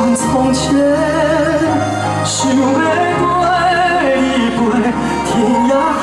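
Male singer singing with a wide vibrato into a handheld microphone over instrumental accompaniment with sustained bass notes that change twice.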